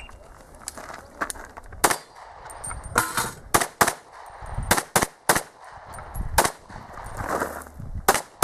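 Pistol shots fired in a rapid IPSC course of fire: about nine sharp cracks beginning about two seconds in, coming in quick pairs and groups with short pauses between them.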